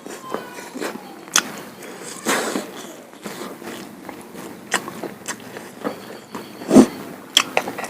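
Close-up eating sounds: irregular wet chewing, lip smacks and mouth clicks, with one louder thump about seven seconds in.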